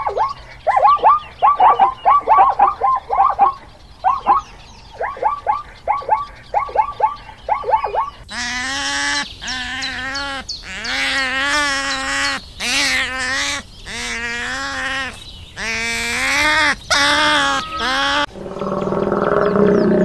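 Wild animal calls: a fast run of short, downward-sweeping calls, then, from about eight seconds in, a string of longer wavering calls of under a second each. Music with a low drone takes over near the end.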